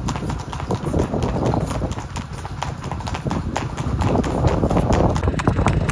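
Horse hoofbeats clip-clopping in a quick continuous run, several strikes a second.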